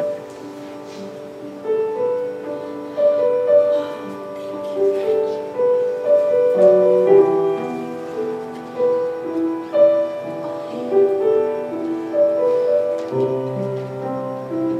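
Slow piano music playing a melody of held notes, with a low bass note joining near the end.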